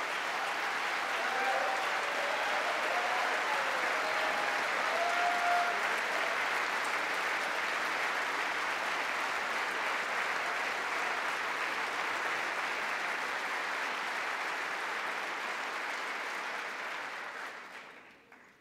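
A large crowd applauding steadily in a standing ovation, with a few voices calling out in the first several seconds. The clapping dies away near the end.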